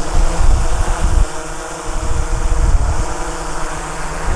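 DJI Mavic 3 Pro's propellers hovering close by with a steady high hum as the drone is brought down to land, over heavy gusty wind rumble on the microphone.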